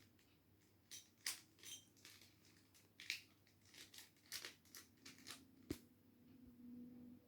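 Layers of a plastic 3x3 mirror cube being turned by hand: irregular clicks and scrapes as the pieces snap past each other, the sharpest click near the end.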